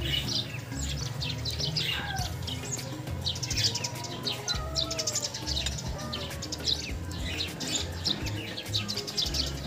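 Many small birds chirping in quick, high, downward-sweeping calls over background music with a steady low beat.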